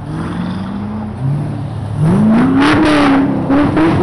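Vehicle engines driving past at close range, one accelerating: its pitch climbs, dips about a second in, then rises sharply about two seconds in and holds high, the loudest part.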